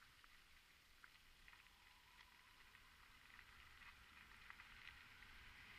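Faint, steady hiss of bicycle tyres rolling fast over an unpaved track, with scattered small clicks of grit and stones under the wheels and a low rumble of wind on the helmet-mounted microphone.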